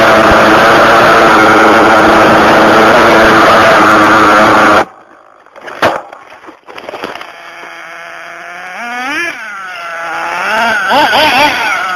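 Nitro RC buggy engine (Ofna Ultra LX with an RB S7 engine) at full throttle, heard from the car itself as a loud, steady high-pitched drone that cuts off sharply about five seconds in. After a click, the engine is heard from the roadside, revving up and down several times and getting louder near the end.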